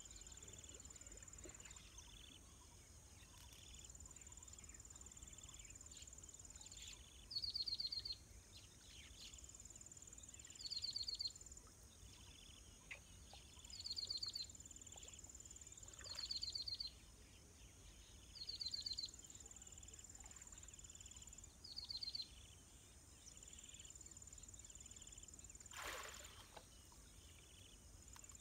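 Faint insect chorus: a high steady buzz that switches on and off every few seconds, with a louder, rapidly pulsing trill repeating about every three seconds. One brief noise near the end.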